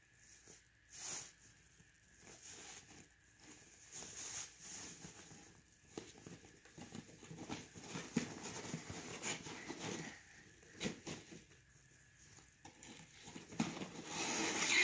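Rustling and crinkling of a pink fabric gift bag as hands untie it, open it and reach inside, in irregular bursts that grow louder toward the end.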